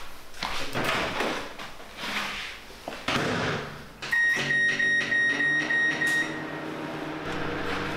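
Microwave oven being set going: a few knocks and clicks, then about four seconds in a string of high electronic beeps for about two seconds, over the steady low hum of the microwave running.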